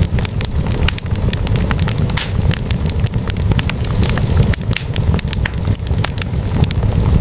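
Wood fire burning in a fireplace: logs crackling and popping with many irregular sharp snaps over a steady low rumble of the flames.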